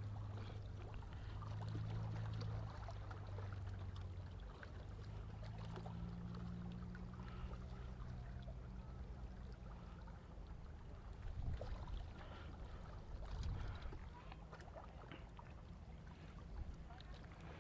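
Faint low rumble with light water lapping and scattered small knocks, and two slightly louder low thumps about eleven and thirteen seconds in.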